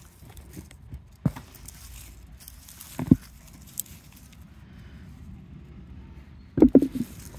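A few dull knocks and thumps from close handling, scattered and irregular, with a quick run of three or four near the end.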